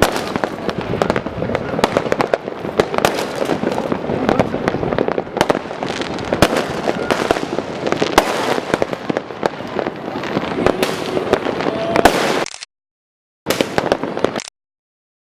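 Dense, continuous popping and banging of many fireworks and firecrackers going off at once, the blasts overlapping. It cuts off abruptly near the end, with one short burst returning about a second later.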